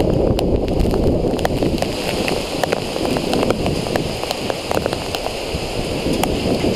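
Heavy wind-driven rain pouring down in a severe storm with strong gusting wind, a loud steady rush dotted with sharp raindrop ticks.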